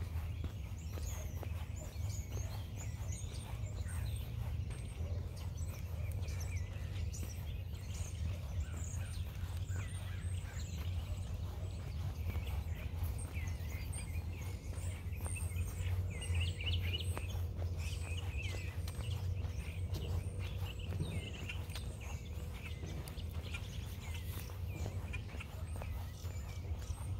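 Footsteps walking steadily on a park path, with birds chirping and calling, most often around the middle, over a steady low rumble.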